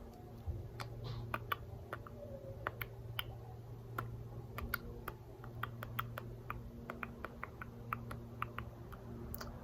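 Faint, irregular light clicks and taps of a plastic action figure being handled and turned over, above a steady low hum.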